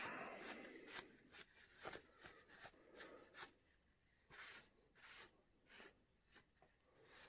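Faint crinkling and rustling of a crumpled paper tissue rubbed over a small horse miniature to wipe off the wet oil paint: a busier patch in the first second, then a run of short scratchy rustles that thin out about halfway through.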